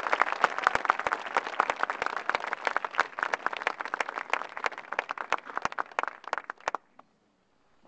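Audience applauding, the clapping thinning out and stopping about seven seconds in.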